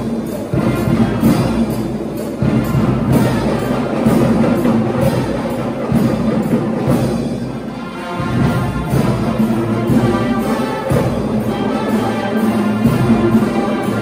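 Band music with a steady drumbeat and brass, played by a military band together with traditional drummers.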